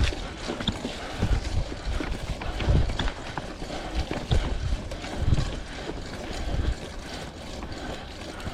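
Vintage Klein Attitude Comp mountain bike ridden on a dirt single-track trail: tyre and trail noise with scattered small rattles and clicks from the bike, and dull low thumps recurring about every second and a half.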